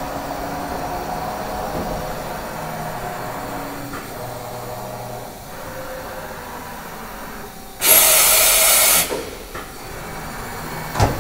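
Mazak VTC-300C vertical machining center running through a test program: a steady machine hum with faint whining tones. About eight seconds in, a loud hiss lasts about a second, and a sharp clunk comes near the end.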